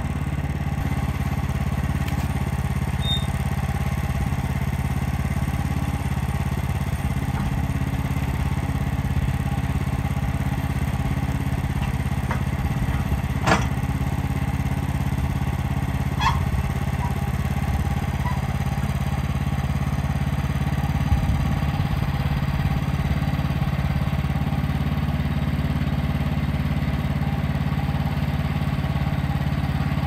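Wood-Mizer LX55 portable sawmill's 14 hp engine running steadily at an even pitch, with a couple of sharp knocks near the middle as the log is shifted by hand on the mill bed.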